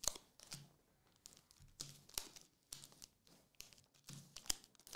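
Trading cards and the crinkly foil pack wrapper being handled: a string of soft, irregular clicks and rustles as the cards are slid and sorted by hand.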